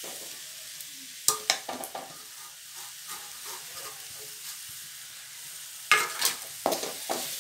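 Onion, tomato and ginger-garlic paste sizzling steadily in oil in a metal kadai as masala powders go in. Sharp metal clinks sound about a second and a half in, and a ladle scrapes and knocks against the pan near the end.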